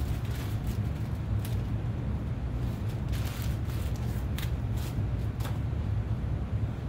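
A steady low rumble of workshop background noise, with a few brief soft rustles and wipes from nitrile-gloved hands and cloth as stain is worked onto a wooden guitar body.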